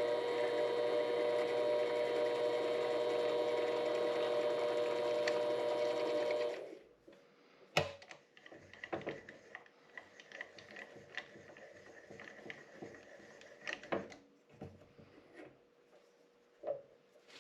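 Vevor 7x12 mini-lathe running steadily, then switched off about six and a half seconds in. A few sharp knocks and clicks follow, from handling on the machine.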